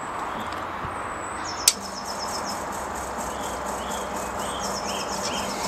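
A sharp click as the Servis compact washing machine is switched on, then a steady low hum from the machine, with high chirping over a background hiss.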